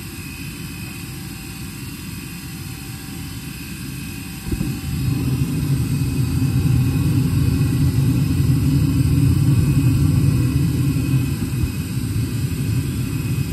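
Old Trane XE80 gas furnace, converted to propane, with its draft blower running steadily through the pre-purge; about four and a half seconds in the burners light all at once and settle into a louder, steady low-pitched burning noise.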